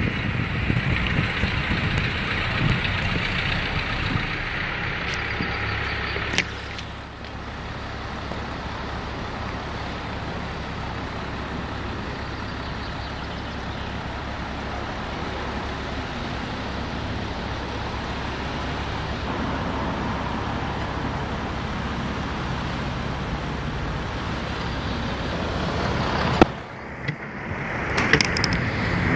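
Town-centre road traffic, with cars running and idling as a steady low rumble. For about the first six seconds, and again near the end, wind rushes over the microphone of the moving bicycle, with a single knock just before the second stretch.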